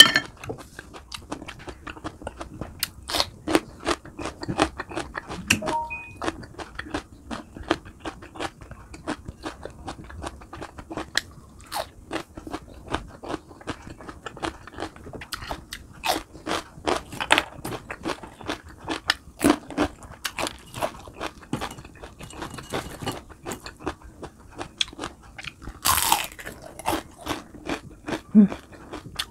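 Close-miked chewing and crunching of crispy fried food, a run of quick crackly bites throughout, with a louder crunch a few seconds before the end.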